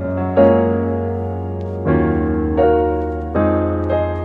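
Background piano music: four soft chords struck and left to ring and fade.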